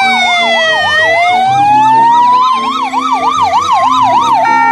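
Ambulance sirens sounding together: one slow wail glides down and then back up, while another sweeps rapidly up and down about three times a second. Near the end the sweeping gives way to a steady held tone.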